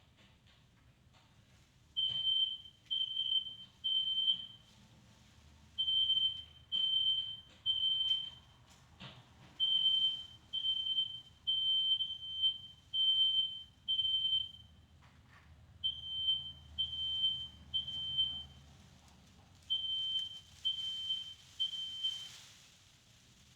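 Smoke alarm going off, set off by smoke in the room: high-pitched beeps in groups of three with a short pause between groups, starting about two seconds in.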